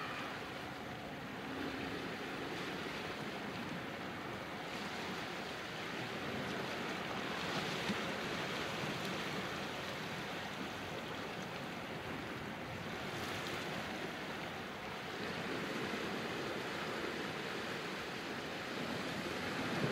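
Gentle surf washing over rocks at the shoreline, a steady wash that swells and eases every few seconds.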